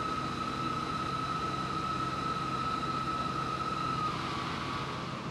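Fire engine's engine and pump running steadily, pumping water into the hose lines, with a steady high whine that steps slightly lower in pitch about four seconds in.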